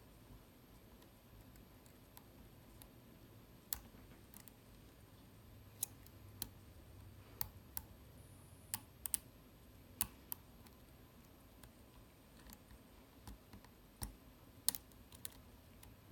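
Scattered, irregular sharp clicks of lock picks working the sliders of a Vidmar cabinet slider lock as it is picked.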